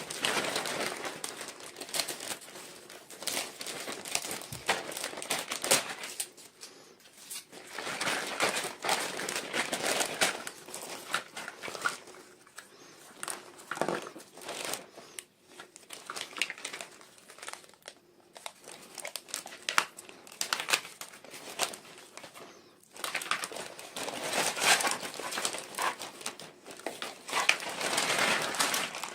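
Toy packaging crinkling and rustling in irregular bouts as it is handled and opened, with many small clicks and brief pauses between bouts.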